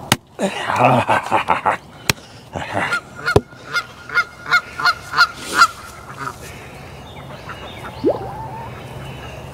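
Canada goose honking: a run of about ten short honks, roughly three a second, growing louder, then stopping.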